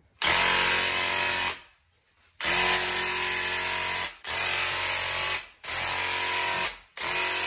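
Graco TrueCoat 360 DS handheld electric airless paint sprayer spraying paint, its pump buzzing in five runs of about one to one and a half seconds as the trigger is pulled and released between passes.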